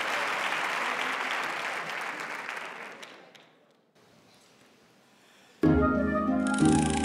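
Audience applause dies away over the first three seconds, followed by a brief hush. Near the end, accompaniment music starts abruptly with two loud chords about a second apart.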